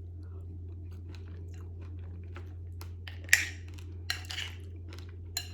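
A person chewing a mouthful of berries, coconut slices and ice, with a few short crisp crunches, the loudest about three seconds in, over a steady low hum.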